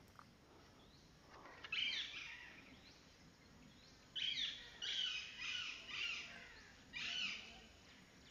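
High chirping calls, each a quick falling note: one burst about two seconds in, then a run of five or so from about four to seven and a half seconds, over a faint steady outdoor hiss.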